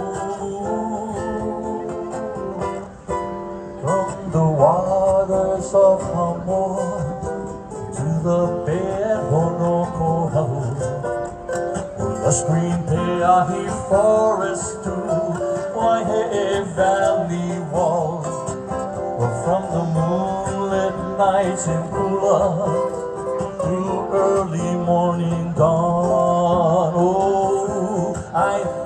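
Live ukulele playing an instrumental passage of a slow Hawaiian song, plucked melody notes with some wavering pitch over a second stringed instrument's lower notes.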